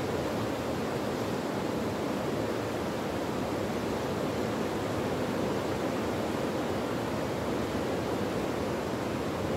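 Muddy river in spate after torrential rain, its fast floodwater rushing past the bank in a steady, even wash of noise.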